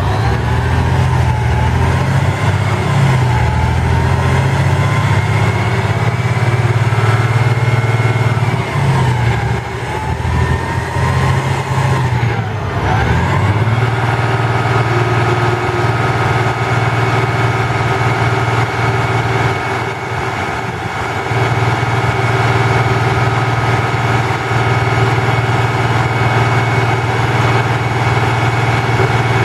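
Boom truck's Cummins N14 inline-six diesel running to power the boom's hydraulics, with a whine that wavers up and down in pitch as the boom and hoist are worked. About halfway through it dips briefly, then settles into a steady pitch.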